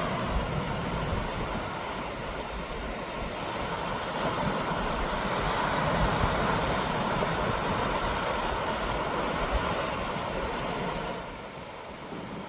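Flowing water rushing steadily as an even, hissing wash, dropping noticeably in level about eleven seconds in.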